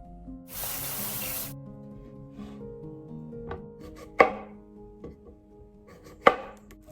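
A knife chopping on a cutting board: a few light taps and two sharp, loud knocks about two seconds apart. A short hiss comes near the start, over background music.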